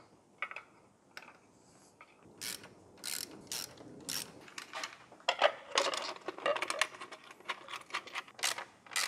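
Sharp clicks and knocks of hand tools and plastic ignition parts as a distributor cap and rotor are taken off and fitted at the front of a BMW M70 V12. The clicks are sparse at first, then come in a dense run of rapid clicks about halfway through.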